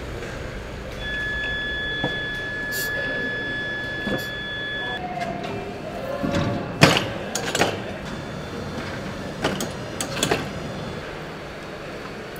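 Assembly-line workshop noise: a steady electronic beep tone is held for about four seconds. Then come a series of sharp metallic clanks and knocks, the loudest about seven seconds in, over a continuous machinery hum.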